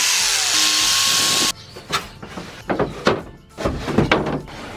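Corded jigsaw cutting 3/4-inch plywood, a loud steady hiss that cuts off abruptly about a second and a half in. Then come several separate wooden knocks and bumps as a plywood subfloor panel is shoved into place on the bare metal floor of the van.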